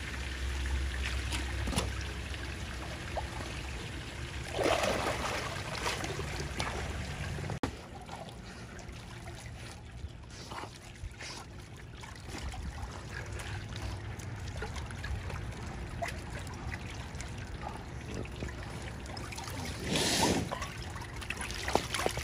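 Pool water lapping and trickling around a swimming dog, with two louder splashes, one about five seconds in and one near the end. A low hum stops about seven and a half seconds in.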